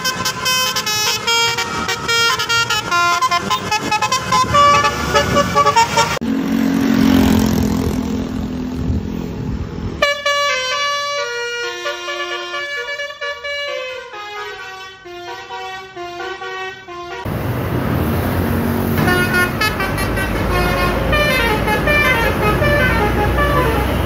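Indonesian 'telolet basuri' bus horns, multi-trumpet air horns playing quick melodic tunes of stepping notes as the buses pass, in several short clips. Between tunes a steady low horn or engine tone and road traffic are heard.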